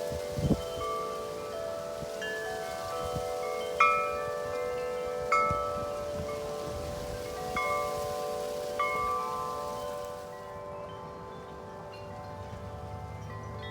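Wind chimes ringing in gusty wind, several tubes sounding at different pitches at once. There are about five sharper strikes in the first nine seconds, then the ringing fades and lingers.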